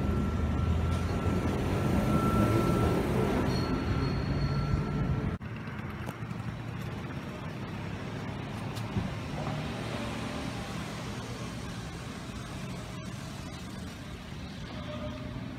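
A vehicle running with a steady low rumble and a faint thin whine above it. About five seconds in it cuts off abruptly to a much quieter low background hum.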